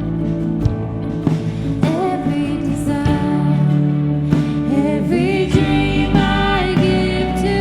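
Live band music with a lead singer, recorded straight from the mixing desk, with sustained bass and instrument notes under the vocal line.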